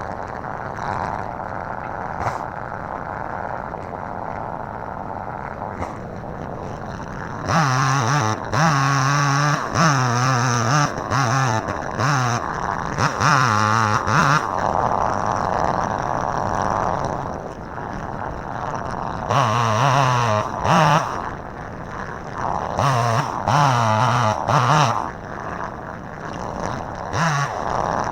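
Chainsaw running, throttled up in repeated bursts of a few seconds each while cutting into a tree, dropping back to a lower steady running sound between the bursts.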